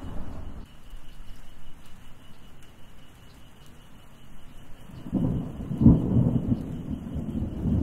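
Thunderstorm: rolling thunder with rain. A low rumble fades away, then a louder roll of thunder builds about five seconds in, with a sharp crack near six seconds, and keeps rumbling.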